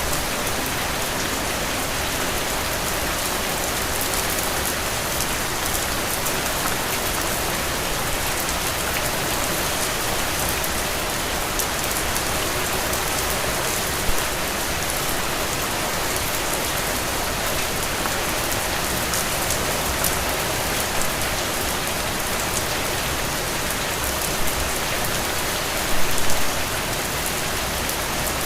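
Heavy rain falling steadily: a dense, even hiss of rain on a surface, with individual drops pattering through it. There are brief louder moments once about halfway through and twice near the end.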